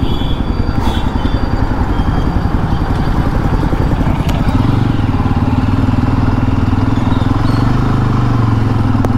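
A motor vehicle engine running while under way, with road and wind noise; a steady low engine hum grows stronger about halfway through.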